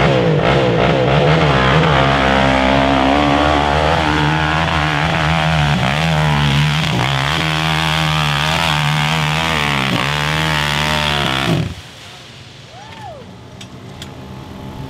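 Sport quad (ATV) engine revving hard under load up a steep dirt hill, its pitch wavering up and down as the throttle works. It cuts off abruptly about three-quarters of the way through, leaving only faint background sound.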